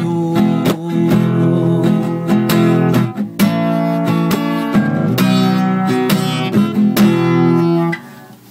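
Acoustic guitar strummed in repeated chords, closing out the song with no singing; the strumming stops suddenly about eight seconds in.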